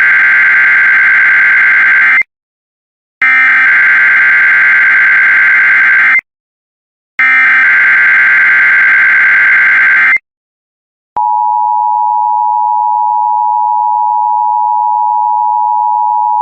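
Emergency Alert System SAME header: three identical bursts of shrill, screeching digital data, each about three seconds long with a second's gap between them. They carry the coded alert, here a required weekly test. About eleven seconds in, a loud, steady EAS attention-signal tone starts and holds.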